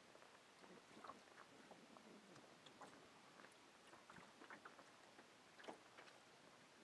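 Near silence, with faint irregular small clicks and crackles scattered through it, one a little stronger near the end.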